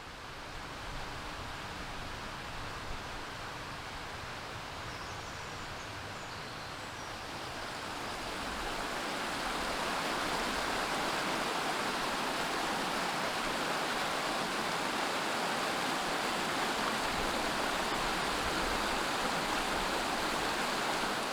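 Steady rushing of running water, a woodland stream, fading in and growing louder about eight seconds in.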